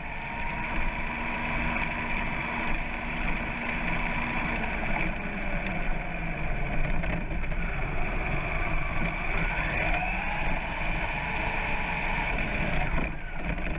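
Brushless electric drive of a 1/10-scale Turnigy Trooper SCT 4x4 RC short course truck, heard from a camera mounted on the truck. A motor whine rises and falls with the throttle over steady rumbling from the tyres on rough tarmac.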